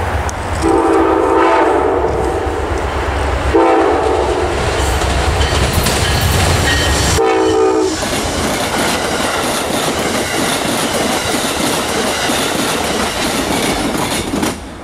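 Amtrak passenger train passing at speed. Its horn sounds two long blasts and a short one over the locomotive's deep rumble, then the passenger cars roll by with steady wheel noise and clickety-clack. The sound cuts off suddenly near the end.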